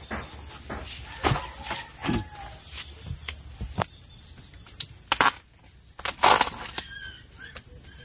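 Steady high-pitched drone of insects, with a couple of short rustling noises about five and six seconds in.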